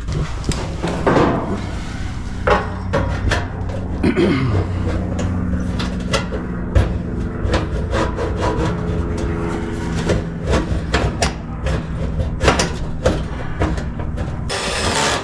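Repeated clicks, knocks and scraping of parts being handled and fitted inside an electric dryer while a new heating element is installed. A steady low hum runs underneath through the middle.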